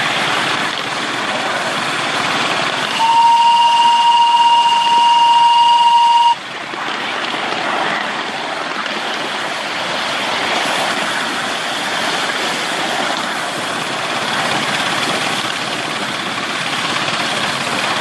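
One long whistle blast from a miniature steam locomotive, a model of GWR 1420, starting about three seconds in and cutting off sharply about three seconds later. Around it is the steady running noise of the little engine travelling along the track.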